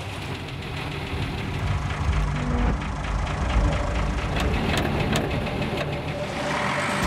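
Old Bedford army truck's engine running as the truck crawls slowly through deep mud. It strengthens about two seconds in, with a few sharp clanks about four to five seconds in.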